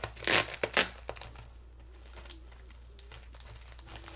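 Plastic packaging crinkling as a boxed collectible is unwrapped, with several loud crinkles in the first second and then faint scattered handling ticks. A faint low, wavering hum-like tone comes briefly about two seconds in and again near the end.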